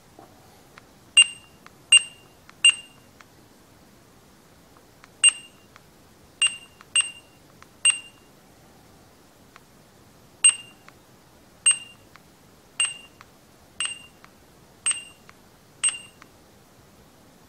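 Honeywell Dolphin 6000 mobile computer's built-in barcode scanner giving short, high beeps, thirteen in all at uneven gaps of one to two seconds. Each beep is the scanner's good-read signal that a barcode has been decoded.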